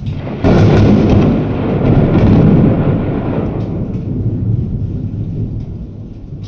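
Thunderclap: a sudden sharp crack about half a second in, followed by a rolling rumble that slowly fades over the next few seconds.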